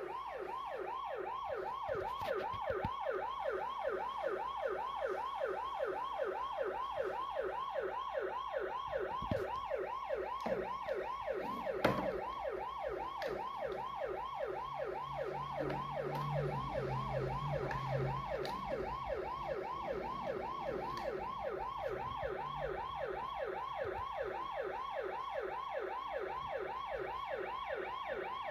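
Ambulance siren sounding in a fast yelp: rising pitch sweeps that repeat a few times a second at a steady level.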